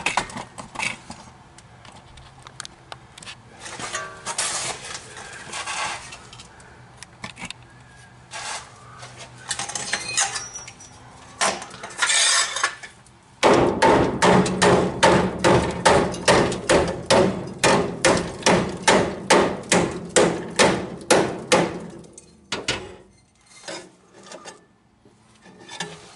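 Hammer blows on the rusted steel cab mount of a 1966 Ford F100 as a cut piece is knocked loose. Scattered metal clanks and scraping come first; about halfway in, a steady run of loud, ringing strikes begins, about three a second for some eight seconds, then stops.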